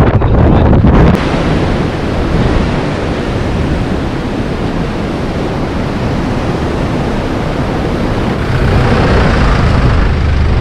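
Wind rushing over the microphone with surf breaking on the beach, a steady noisy wash. A low rumble cuts off about a second in.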